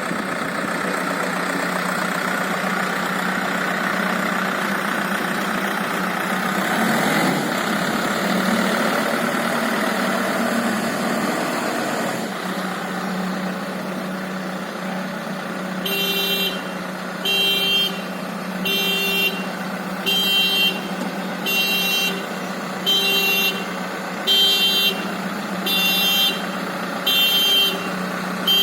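A 76 hp Escorts White Line backhoe loader's diesel engine running steadily. From about halfway through, a loud electronic beep repeats about once every second and a half.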